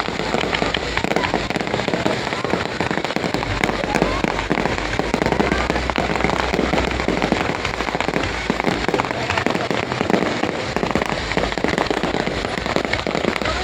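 Fireworks display going off: a dense, unbroken run of cracks and pops with low booms under them.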